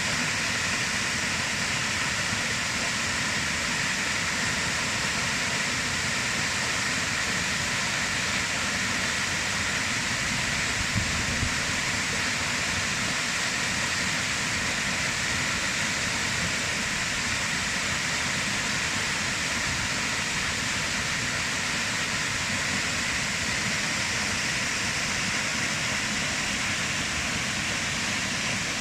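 Waterfall rushing in a steady, unbroken roar of falling and splashing water.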